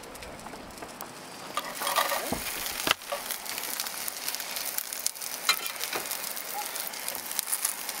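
Fillets and a sausage sizzling in a frying pan on a stove, a steady crackling hiss that sets in about a second and a half in. A few sharp clicks sound over it.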